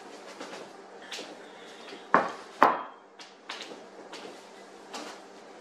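Cast iron skillet set down on a wooden board: two heavy knocks about half a second apart, the second ringing briefly, with lighter clicks and knocks around them.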